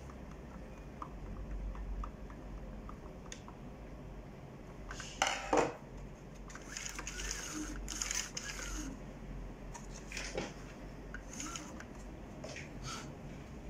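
Hands handling the metal frame and plastic parts of an opened Epson LQ-310 dot-matrix printer: light clicks and knocks, with a louder clatter of parts about five seconds in.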